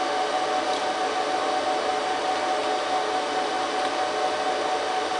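Cooling fans of a running HP ProLiant DL380 G3 rack server: a steady rushing noise with a constant whine held through it.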